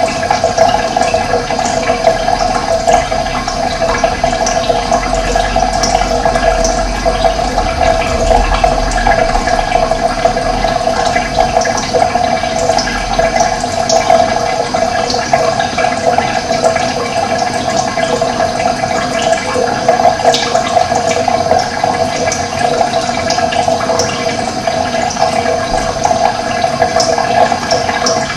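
Running water: a steady, unbroken rushing flow.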